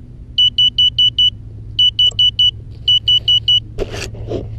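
An FPV quadcopter's buzzer beeps in three quick runs of high, even beeps, about five a second, sounding while the craft lies crashed in a bush. Near the end there is a burst of rustling and knocking as the quadcopter is moved out of the leaves.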